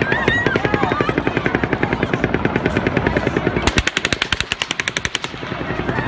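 Recorded rapid automatic gunfire: a long, steady string of shots. About two-thirds of the way through, a sharper, faster burst of about a second and a half cuts in over it, which the analyst takes for a second gun firing at the same time rather than an echo.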